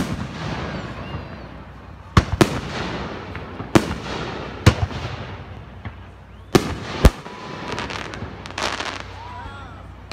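Aerial firework shells bursting overhead: about seven sharp bangs at uneven intervals, each trailing off, with a rapid burst of crackling near the end.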